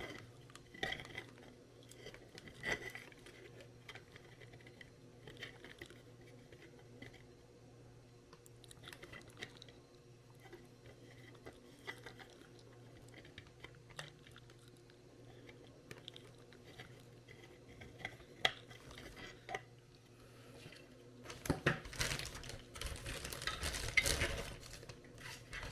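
Small plastic parts being handled and fitted on an RC truck chassis: scattered light clicks and taps, then a louder spell of rustling and crinkling near the end.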